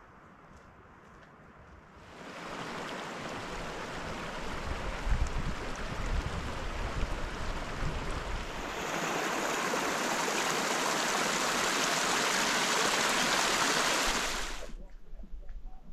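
Shallow mountain creek rushing and splashing over rocks, a steady noise that comes in about two seconds in, grows louder partway through and cuts off suddenly near the end.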